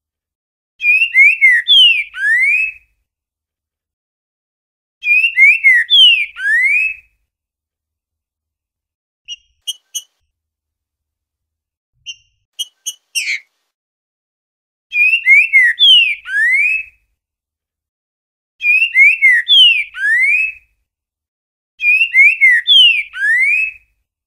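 Green-winged saltator (trinca-ferro) singing its boiadeiro-type song: five loud whistled phrases, each a few quick slurred notes ending in a rising whistle. A few short high chips come between the second and third phrases.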